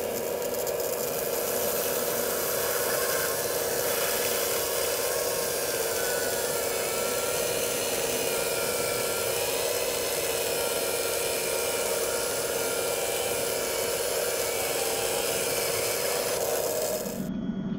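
Saw of a scale RC grapple-saw head on a model excavator running steadily and rasping as it cuts through a thin tree trunk at the base, stopping abruptly shortly before the end.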